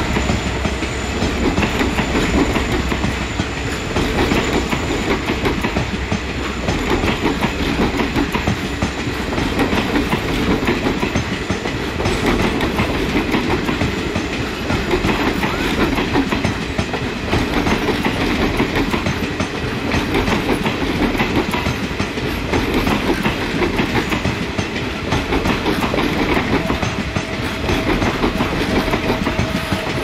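Passenger coaches of an express train rolling past on the next track, their wheels clattering over the rail joints in a steady rhythmic clickety-clack as the train gathers speed.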